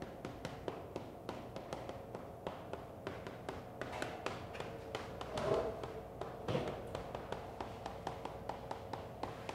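Chalk tapping on a chalkboard as words are written, a quiet, irregular series of taps, a few each second.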